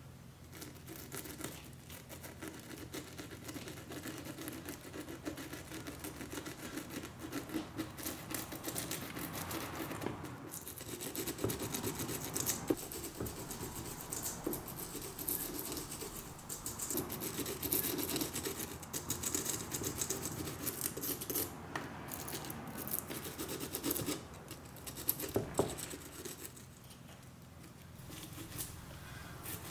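A small wire brush scrubbing the dry deadwood (shari) of a shimpaku juniper bonsai, in rapid scratching strokes with a few short pauses, as the deadwood is cleaned and shaped.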